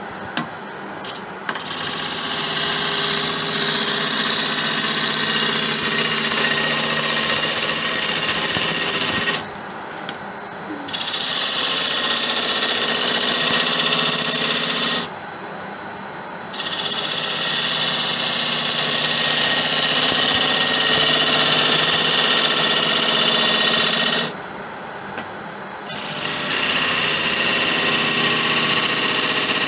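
Turning tool cutting the outside of a spinning acacia bowl on a wood lathe, peeling shavings in four long passes, each several seconds long. In the short breaks between them only the lathe's quieter running sound is left.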